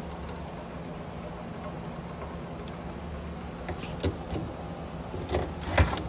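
Metal clinks and knocks from handling a refrigerator's bottom door bracket and screws, with a few separate knocks about four seconds in and near the end, the last one the loudest, over a steady low hum.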